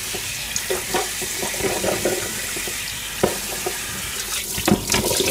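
Tap water running into a stainless steel kitchen sink as dishes and the sink are washed by hand. A few sharp knocks of dishes in the sink come about three seconds in and near the end.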